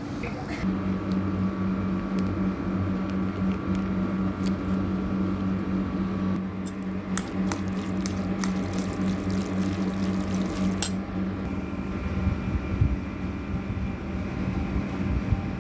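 A steady low hum with scattered sharp clicks and light clatter over it.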